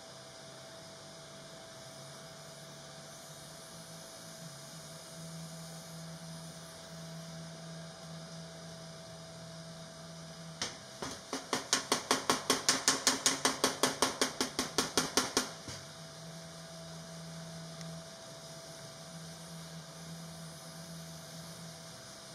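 Body hammer striking a steel tailgate panel over a dolly along a fresh gas-weld seam, planishing it to relieve the weld: a rapid run of about thirty metallic blows, roughly six a second, lasting about five seconds near the middle. Otherwise only a faint steady hum.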